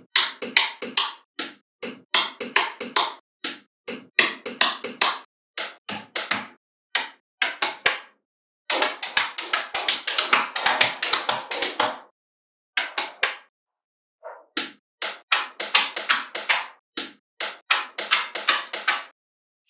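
Small magnetic balls clicking sharply as they snap together one after another, with a denser run of rattling clicks in the middle.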